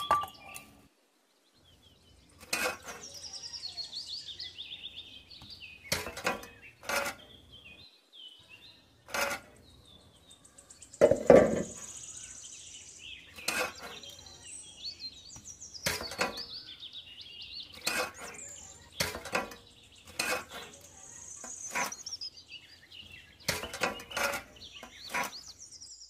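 Light metallic clinks and taps as thin sheet-metal rings, a small metal pipe and a bent metal plate are handled and set in place by hand, a scattered series of short knocks.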